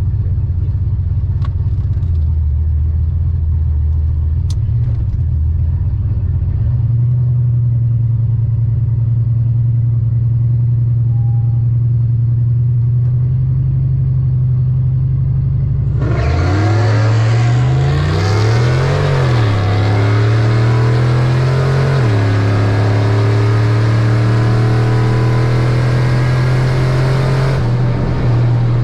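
Drag-race V8s of a turbocharged Foxbody Mustang and a Dodge Challenger Scat Pack idling at the line, then launching about sixteen seconds in. The engine pitch climbs and drops back at the gear shifts, and the cars run hard for about ten seconds before easing off near the end.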